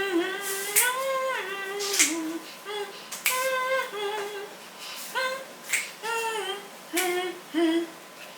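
A voice singing sustained notes that slide up and down, with sharp finger snaps between the phrases.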